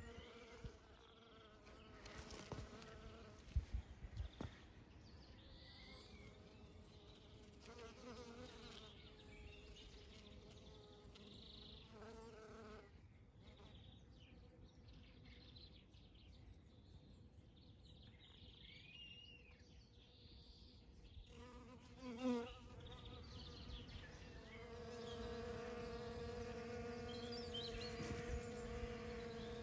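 Honeybees buzzing in flight around flowers: a faint hum that comes and goes, with one bee swooping close about 22 seconds in and a steadier, louder buzz near the end. A few sharp knocks come about three to four seconds in.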